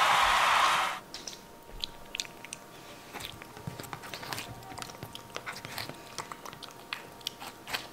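Micro pig biting and chewing watermelon: many short, irregular wet clicks. A louder steady noise cuts off abruptly about a second in.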